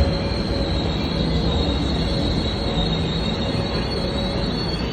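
MTR C-stock electric train running on the rails: a steady rumble with a thin, high-pitched wheel squeal held over it.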